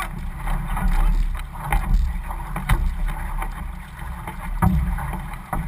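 Crew paddling an outrigger canoe: single-blade paddles splashing into the water in irregular strokes over water rushing past the hull, with wind rumbling on the microphone.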